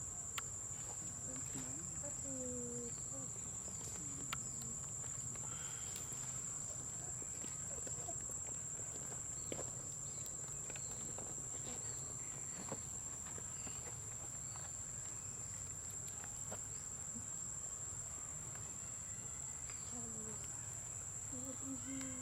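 Steady, unbroken high-pitched insect drone from tropical insects, with a few faint clicks over it.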